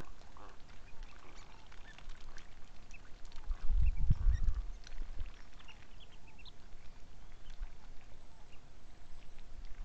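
Ducks and other waterbirds calling: scattered short, high calls throughout, with a louder low rumble about four seconds in.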